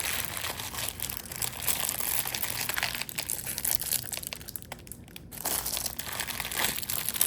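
Packing material crumpling and crinkling in quick, irregular rustles as an item is unwrapped by hand, with a brief lull about two thirds of the way through.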